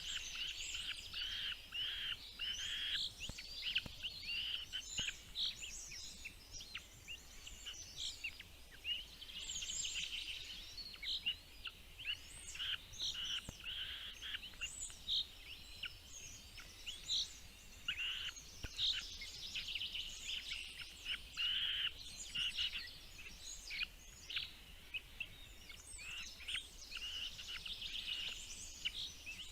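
Small birds chirping: many short, high calls, overlapping and nearly continuous.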